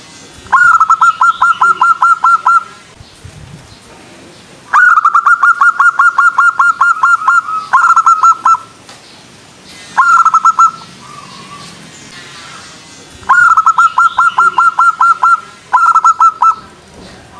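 Zebra dove (perkutut) calling loudly: six runs of quick, evenly repeated cooing notes, about five or six a second, with short pauses between the runs.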